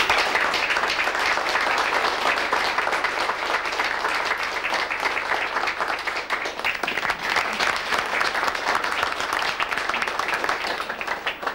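A roomful of people applauding with dense, even hand-clapping that breaks out at once and thins out near the end.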